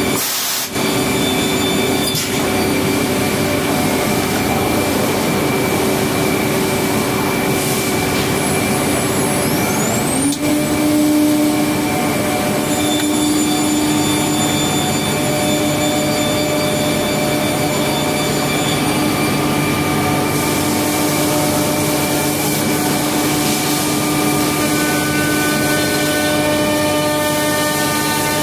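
HOMAG Optimat BMG 511 5-axis CNC machining centre running: a loud, steady machine drone with several whining tones. About ten seconds in, one tone rises in pitch and then holds, as a motor speeds up.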